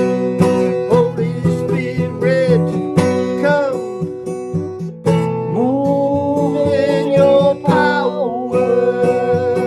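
Music: a guitar-led worship song, strummed acoustic guitar with a melody line that bends and slides in pitch over it, dipping briefly about five seconds in.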